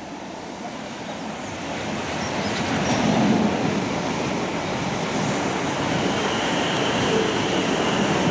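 A South Western Railway electric multiple-unit passenger train passes close beneath. Its rumble grows louder over the first three seconds as it arrives underneath, then carries on steadily as the carriages run past. A steady high whine joins in about six seconds in.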